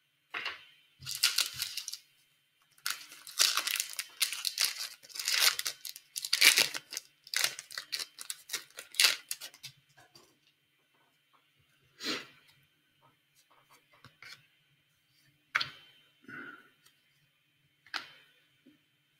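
Foil wrapper of a hockey trading-card pack being torn open and crinkled, a dense run of rustling tears for several seconds, followed by a few scattered short sounds of the cards being handled.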